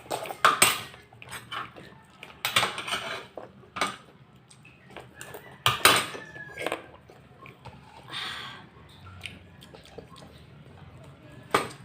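Cutlery clinking and scraping against a plate in irregular clicks and short clatters, with eating noises between them, as lechon paksiw is eaten.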